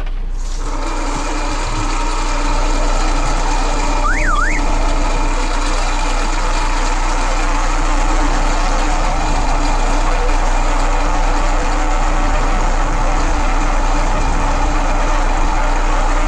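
Boat motor running steadily; it starts up sharply at the outset and grows louder about two and a half seconds in. A brief up-and-down whistle sounds about four seconds in.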